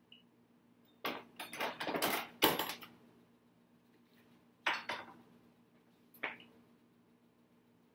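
Kitchenware being handled: dishes and utensils clattering for about two seconds, then two single sharp knocks a little more than a second apart as things are set down.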